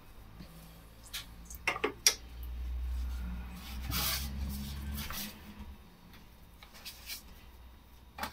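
Hands pressing and trimming a pastry lid on a ceramic pie dish on a silicone mat: soft rubbing with a few light knocks, a quick cluster of them about two seconds in and another about four seconds in.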